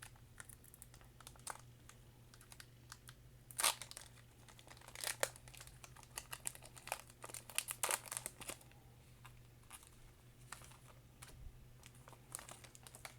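Foil wrapper of a Pokémon booster pack crinkling and tearing as it is opened, in a run of short crackles that is busiest from about three and a half to eight and a half seconds in. A faint steady low hum sits underneath.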